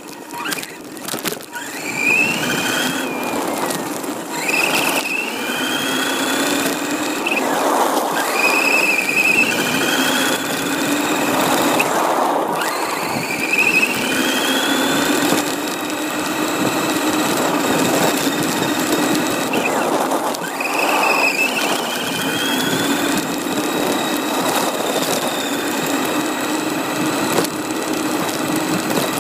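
Radio-controlled car's motor and drivetrain whining, rising in pitch each time it speeds up, about six times, over steady rattling running noise.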